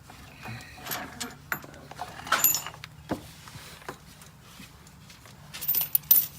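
Scattered clinks and knocks of metal tools and suspension hardware being handled, with a few bright metallic clinks about two and a half seconds in and a quick run of them near the end, over a faint steady hum.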